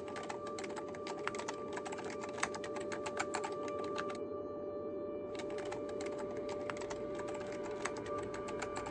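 Rapid typing clicks run for about four seconds, stop for about a second, then start again, over a steady hum.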